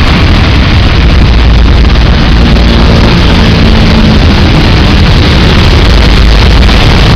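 Heavy rain with traffic driving through it on a wet road: a loud, steady rush of rain and tyre spray over a deep rumble of engines and wind, with a faint engine hum about three seconds in.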